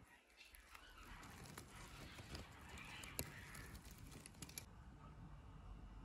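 Faint, soft chattering of budgerigars, with scattered small clicks and rustles.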